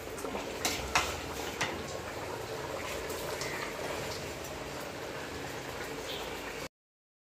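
Chicken masala gravy bubbling at a steady boil in a steel pot over a wood fire, with a few sharp knocks on the pot in the first two seconds as soaked basmati rice goes in. The sound cuts off abruptly near the end.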